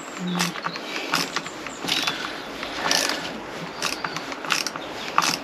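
A hand tool driving in the Loctited mounting screws of a new motorcycle alternator stator: a run of short, sharp clicking strokes, about one a second.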